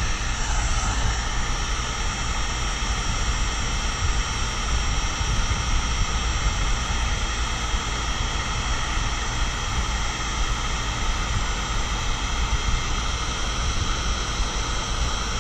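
Electric heat gun running steadily, its fan blowing hot air with a steady whine over the rush of air, shrinking heat-shrink tubing over a crimped wire splice.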